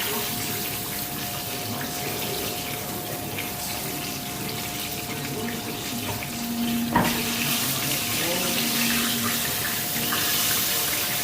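Chicken pieces frying in hot oil in a pot: a steady sizzle with grease popping, brightening after a sharp clack about seven seconds in.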